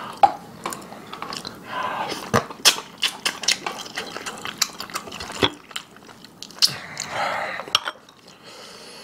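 Close-up eating sounds: chewing and gnawing meat off a braised pork backbone, with many short, sharp, wet clicks of mouth and teeth.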